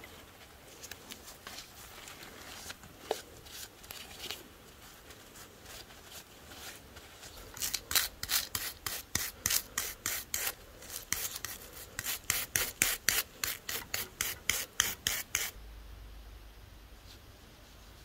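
A stiff brush scrubbing a rusty revolver cylinder fresh from an electrolysis bath, scouring off the loosened rust sludge. It goes in quick back-and-forth strokes, about four a second, for several seconds. Before it come a few light knocks as the dripping part is handled, and near the end a low hum comes in.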